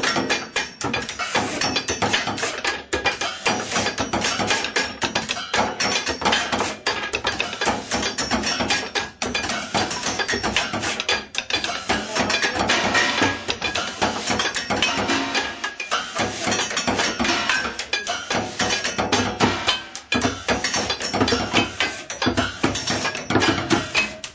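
Fast improvised drumming on hard kitchen objects: dense strikes, many a second, with only brief dips.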